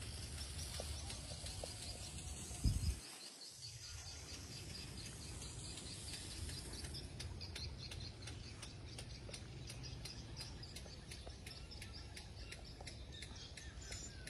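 Outdoor rural ambience: small birds chirping, from about halfway through in a regular series of high chirps about three a second, over a low steady rumble. A brief low thump comes about three seconds in and is the loudest sound.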